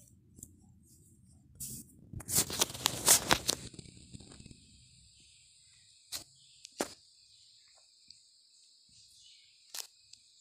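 Wooden rolling pin rolling a disc of dough on a wooden board: a low rumble with a louder stretch of rattling and scraping about two to three and a half seconds in, then a few sharp single knocks of wood on wood.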